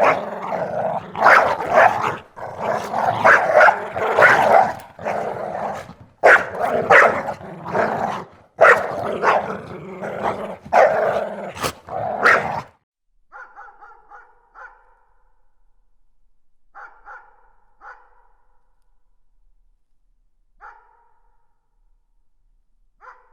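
A dog barking and growling in a rapid run of loud barks that cuts off suddenly after about twelve seconds. A few faint, short, pitched calls follow in twos and threes.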